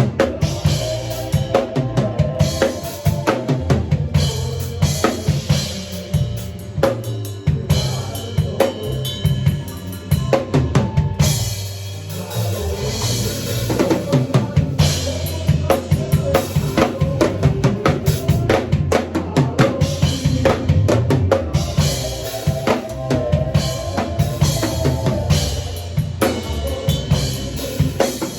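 Drum kit played in a busy, continuous groove of kick drum, snare and rim hits, with rapid fills, and other band instruments holding notes underneath.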